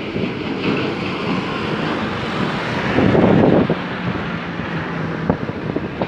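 Wind buffeting a phone's microphone, with a stronger gust about three seconds in and a few light handling knocks.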